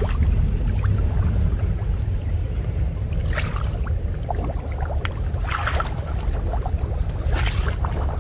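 Muddy pond water sloshing and splashing as a person wades in and works his hands in the shallows, three brief splashes standing out over a steady low wind rumble on the microphone.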